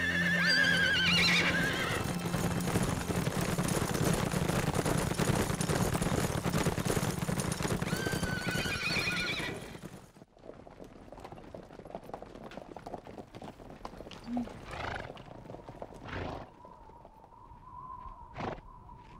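Horses galloping in a dense rush of hoofbeats, with a horse whinnying at the start and again about eight seconds in. The hoofbeats cut off abruptly about halfway through, leaving quieter scattered knocks.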